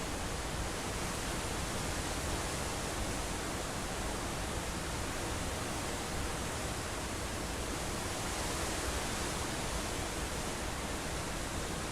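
A steady, even hiss with no changes and no other sound in it.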